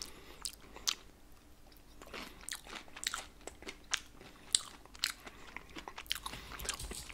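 A person chewing and crunching a mouthful of pan-fried corn dog and potato noodles close to the microphone, a string of short, irregular crunches.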